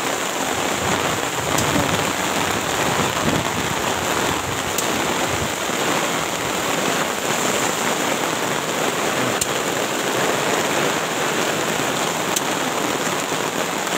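Heavy rain driven by gusting wind: a steady, dense hiss of rain pouring down, with a few sharp ticks.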